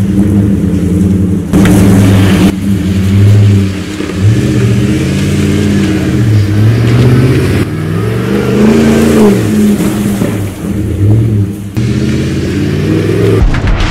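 Lifted Chevrolet Silverado pickup's engine revving up and down repeatedly as the truck is driven hard, drifting across a grassy field. The engine note jumps abruptly a few times.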